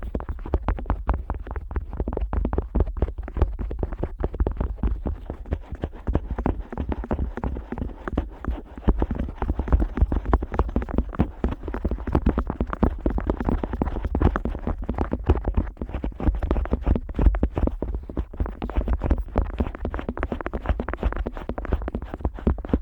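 An otoscope rubbed and tapped against the ear of a Neumann KU100 dummy-head microphone: close, dense scratching and clicking with many small knocks a second and no pauses.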